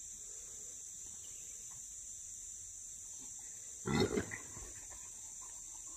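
Trapped wild hog giving one short, harsh grunt about four seconds in, lasting about half a second, over a steady high buzz of insects.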